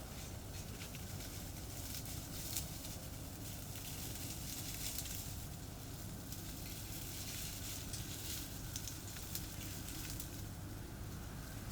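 Wood campfire burning with scattered small crackles and pops, over a steady low rumble of highway traffic.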